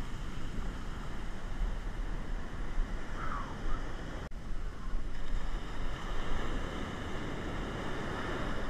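Heavy surf breaking and washing up the beach, with wind buffeting the microphone. The sound drops out briefly about four seconds in.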